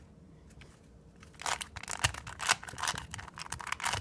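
3x3 Rubik's Cube being turned fast by hand: a run of quick plastic clicks and rattles as the layers turn, starting about a second and a half in after a short lull.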